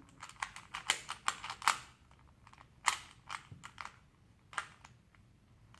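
Rubik's cube being turned quickly by hand, its plastic layers click-clacking: a fast run of clicks over the first two seconds, then a few scattered ones.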